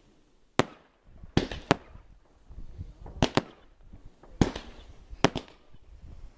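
Consumer fireworks going off: about eight sharp bangs at irregular intervals, some in quick pairs, with crackling hiss between them.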